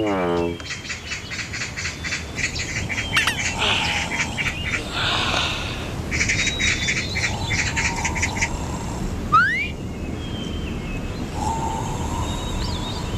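Birds chirping in rapid, repeated high trills, with a short falling tone at the very start and a quick rising whistle about nine seconds in.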